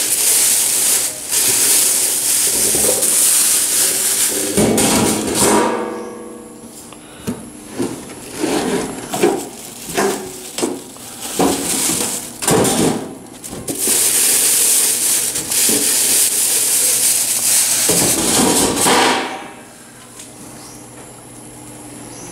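Plastic wrapping crinkling as it is pulled off a stainless steel double deep fryer, in two long spells. In between come clanks and brief ringing as the steel pans, basket and heating element are handled.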